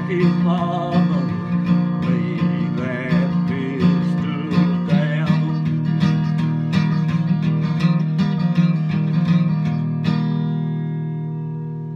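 Acoustic guitar strummed in a steady rhythm, with a man's voice singing over the first half. About ten seconds in the strumming stops and the final chord rings out and fades.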